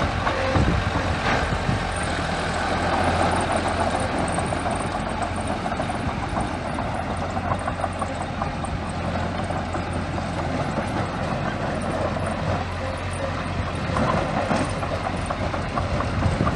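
Small bulldozer's diesel engine running steadily, with a dense clatter throughout and a few louder knocks near the start and near the end.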